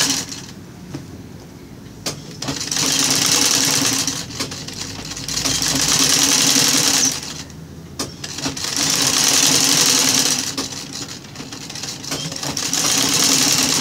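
Sewing machine stitching in short runs of about two seconds each with brief stops between them, sewing gathered fabric scraps onto a sack-cloth rug base.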